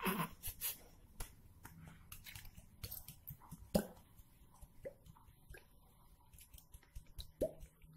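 Thick tomato sauce coming out of an upside-down plastic bottle into a ceramic bowl: irregular wet squelches, pops and clicks, with a cluster at the start and the loudest pop about four seconds in.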